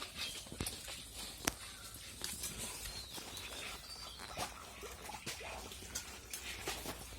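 Pigs in a farm pen, with scattered sharp clicks and knocks and several short high-pitched calls over a low steady hum.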